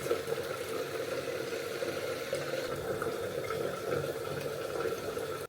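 Running water, a steady rushing noise that cuts off suddenly at the end.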